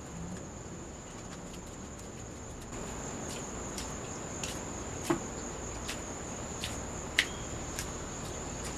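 Crickets trilling steadily on one high unbroken note. From about three seconds in, a dozen or so sharp clicks or taps come irregularly over it, two of them standing out as the loudest sounds.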